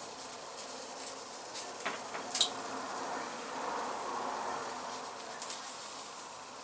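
Tomatillos and serrano peppers roasting on the stove: a steady buzzing sizzle with scattered small crackles, and one sharper click about two and a half seconds in.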